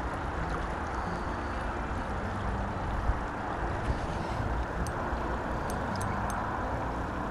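Steady rush of river water running over a shallow riffle, with a few faint clicks about five to six and a half seconds in.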